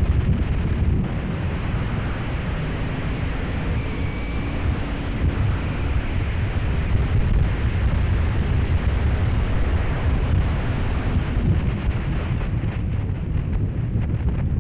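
Heavy wind buffeting on the helmet camera's built-in microphone at riding speed, a loud, steady rumble. The 1997 Honda VFR750F's V4 engine is only faintly audible beneath it.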